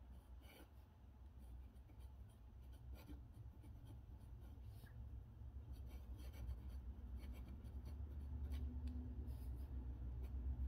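A steel dip pen nib scratching lightly across paper as it writes a word in short strokes, faint, over a low hum that grows louder near the end.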